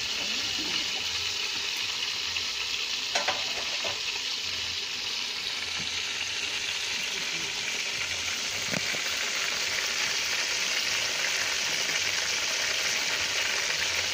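Chicken cooking in aluminium pots over a wood fire, giving a steady sizzling hiss, with a few short knocks about three seconds in and again near the end.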